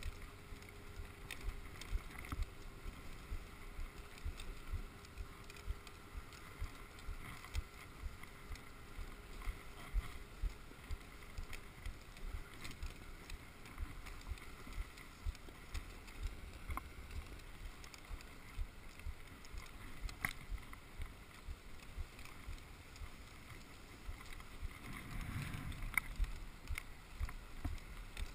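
Dog sled gliding along a packed snow trail: the runners hiss over the snow while the sled knocks and rattles over the bumps, with frequent irregular low thumps and a few sharp clicks.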